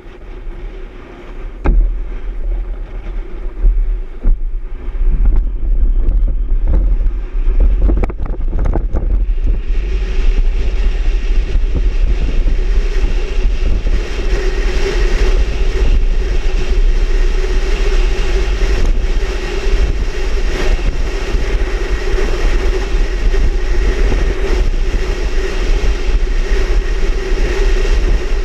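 Car driving away fast: engine and road noise with wind buffeting the microphone, a few knocks in the first seconds, and a rushing noise that grows louder and fuller about ten seconds in.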